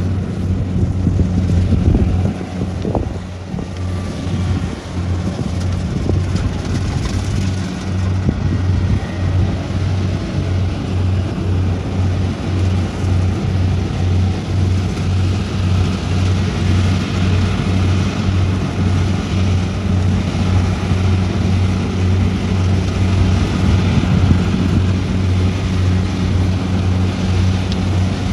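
Kubota rice combine harvester running while it harvests: a steady low engine drone with an even, fast pulsing, over a haze of machine noise.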